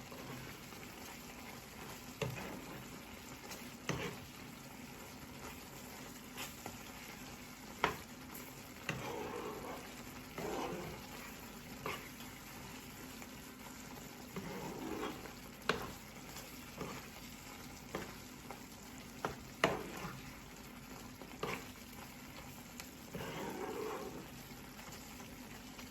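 Chicken and mushrooms in a thick cream sauce being stirred in a hot pan: a steady low sizzle, with scraping strokes of the utensil through the sauce and sharp clicks of it against the pan every second or two.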